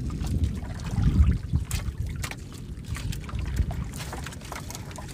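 Water trickling and splashing over a low rumble of wind on the microphone, with a few light clicks.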